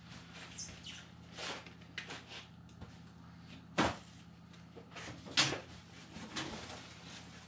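Sticker sheets and box packaging being handled: scattered rustling with a few light knocks, the two sharpest about four seconds in and a little past five seconds.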